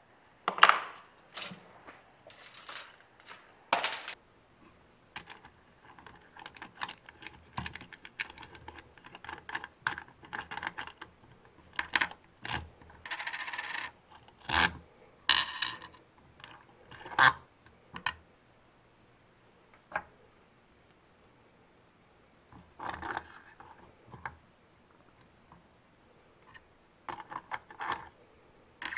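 Small metal hardware being handled: irregular sharp clicks and clinks of washers, springs and a wing nut being fitted onto the threaded rod of a homemade rod-wrapping thread tensioner, with a spool of thread slid on. A brief steady scrape comes about halfway.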